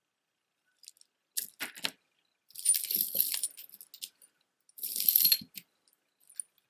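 Jewelry being handled: beads and chain clinking and rattling against each other in three short bursts.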